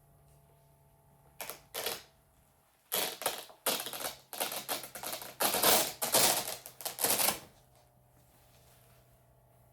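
Velcro straps on a leg massager being pulled open in ragged ripping tears: two short rips a little over a second in, then a longer run of loud rips from about three to seven seconds, over a low steady hum.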